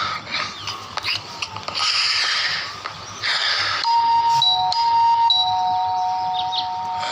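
Electronic doorbell chime ringing from about four seconds in: a higher steady tone followed by a lower one, the two alternating and then held together. A few short bursts of hiss come before it.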